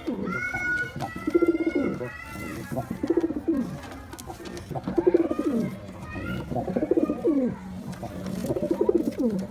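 Domestic pigeon cooing: a male's courtship call, about five rolling coos roughly two seconds apart.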